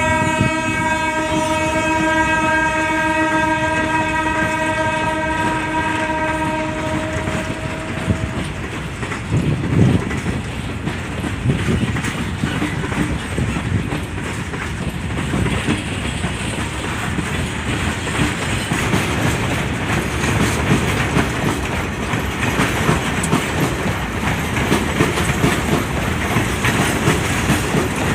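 Indian Railways WAG-12B electric freight locomotive sounding its horn in one long multi-tone blast that ends about seven seconds in. Then comes the steady rumble and clickety-clack of the train's wheels running past.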